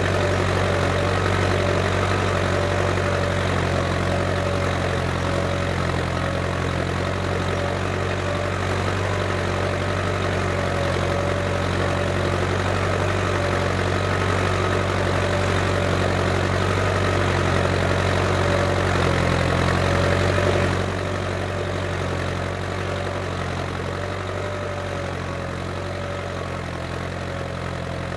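Case International 885XL tractor's diesel engine running steadily while ploughing. It gets a little quieter about three-quarters of the way through.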